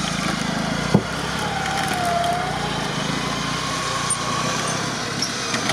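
Lada Niva's engine running steadily under load as the 4x4 climbs out of a steep trench, with one sharp knock about a second in and a faint wavering whine in the middle.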